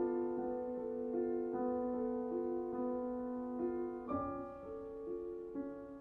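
Slow, gentle solo piano music: notes ring on and overlap, shifting about every half second, with a new, stronger chord struck about four seconds in.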